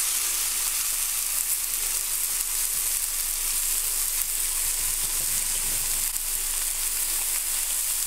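Smoked, cured beef roast searing in a hot cast iron skillet: a steady, high-pitched sizzle.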